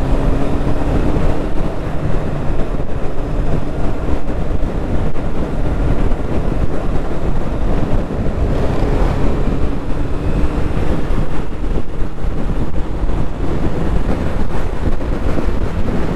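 Heavy wind noise on the rider's helmet microphone while riding a motorcycle, with the engine's faint tone underneath, rising and falling in pitch.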